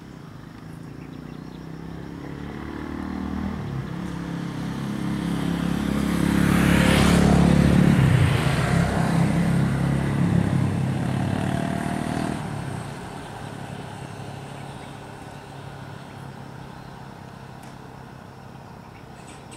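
A motor vehicle passing close by: its engine builds up, is loudest about seven or eight seconds in, drops in pitch as it goes past, then fades away.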